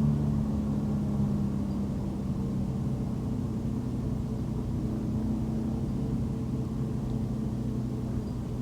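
Car driving on a city road: a steady low engine hum over road rumble, with no sharp events.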